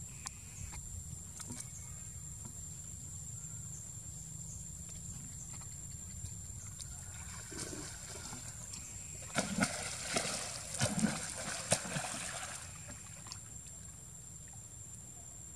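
Water splashing and sloshing as a macaque plunges and swims in a stone-edged pool: a quick run of splashes about ten seconds in, then quieter lapping, over a steady low outdoor rumble.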